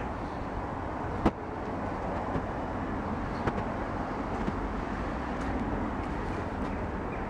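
A steady low mechanical rumble, with one sharp knock about a second in.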